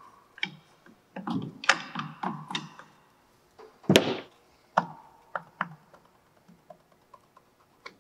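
Cooling fan being pried and worked off the shaft end of a 7.5 hp induction motor: a cluster of knocks and metal clanks, some with a short ring, then one sharp knock about four seconds in, and light clicks and taps after it as the fan slides off the shaft.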